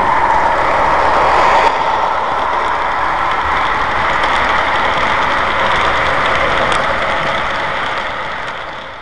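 Model railroad train running past close by, a diesel locomotive followed by a string of boxcars, making a steady rolling noise that fades near the end as the cars go by.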